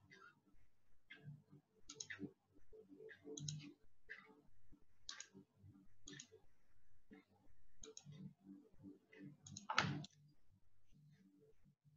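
Faint, irregular clicks of a computer pointing device working an on-screen pen annotation, with one louder click near the end.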